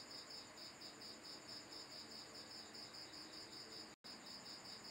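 Faint insect chirping in the background: a steady high-pitched pulse about five times a second, with a brief dropout in the sound about four seconds in.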